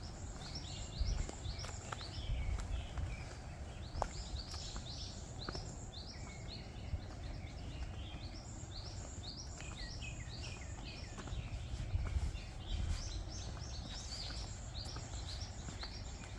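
Small birds chirping throughout in quick runs of short, high notes, over a steady low rumble.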